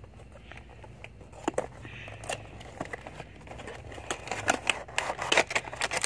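Cardboard box and folded paper manual being handled: scattered rustles and taps, which become denser and louder about four seconds in.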